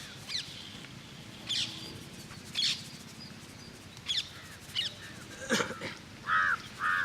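Birds calling: short, sharp chirps about once a second, then two lower, harsher calls near the end.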